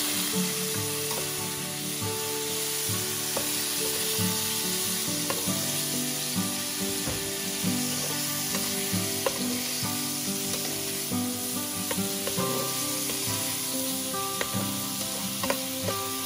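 Fish pieces and chopped garlic sizzling steadily in hot oil in a wok, with a metal spatula scraping and clicking against the pan as they are stirred.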